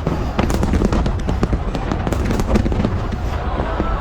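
Fireworks display going off in a dense, continuous barrage: rapid sharp bangs and crackles over a steady low rumble of booms.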